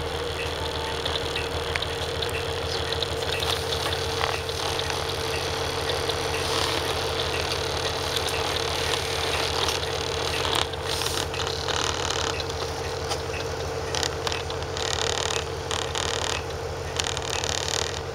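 Cummins ISB6.7 inline-six diesel of a transit bus running steadily at low revs, heard from inside the passenger cabin, with a steady whine over the even low engine beat.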